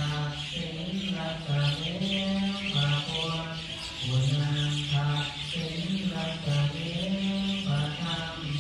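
Buddhist evening chanting: low voices holding notes and stepping between a few pitches in a slow, even line, over a continuous chorus of many small birds chirping.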